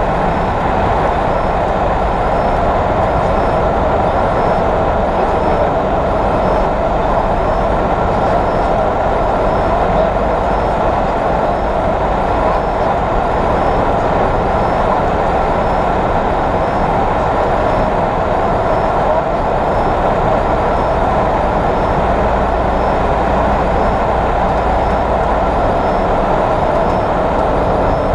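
Ultralight aircraft's piston engine and propeller running steadily, heard from inside the cockpit along with wind noise, on the final approach to landing.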